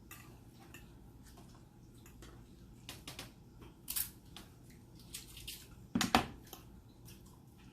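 Close-up eating sounds at a table: scattered clicks, taps and cracks, the loudest about six seconds in, with some wet chewing between them.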